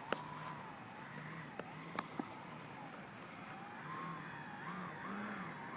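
RC Super Cub model airplane flying, its motor and propeller making a thin whine that rises and falls in pitch as it moves around. A few sharp clicks in the first couple of seconds.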